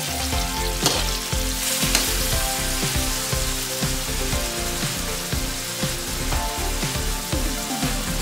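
Chopped tomatoes, onions, garlic and ginger sautéing in hot oil in a wok, sizzling steadily, with a metal ladle scraping and knocking against the pan as they are stirred.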